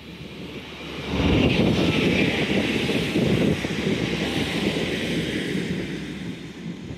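Approaching Class 66 diesel locomotive running, heard as a steady rumble mixed with wind buffeting the microphone. The sound comes up sharply about a second in and eases near the end.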